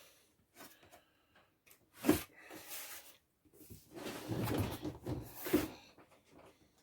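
Cardboard box being handled and opened: a sharp knock about two seconds in, then scraping and rustling of cardboard ending in another knock near the end.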